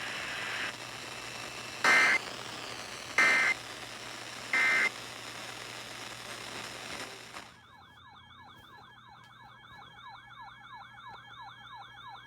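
NOAA Weather Radio broadcast over a steady hiss, sending three short data bursts about 1.3 s apart: the EAS end-of-message code. About seven and a half seconds in the hiss cuts out and an electronic siren alarm starts, a fast yelp of falling sweeps about four or five a second over a steady tone.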